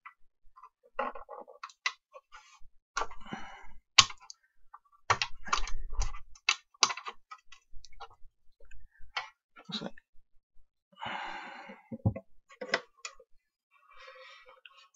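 Hard plastic equipment enclosure being handled and turned over on a workbench: irregular clicks and knocks of plastic and a screwdriver, with a brief rubbing noise about eleven seconds in.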